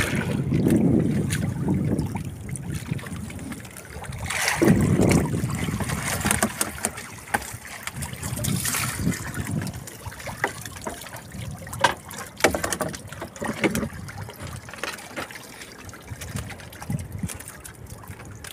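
Water splashing and streaming off a mesh fish trap as it is hauled out of the sea into a small boat, with a surge of pouring water a few seconds in. Wind rumbles on the microphone at the start, and scattered sharp knocks follow later as the trap is handled.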